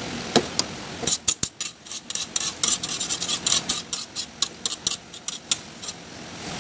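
A spatula stirring sticky rice in a pot, scraping and clinking against the pot's sides and bottom in a rapid run of strokes from about a second in until shortly before the end.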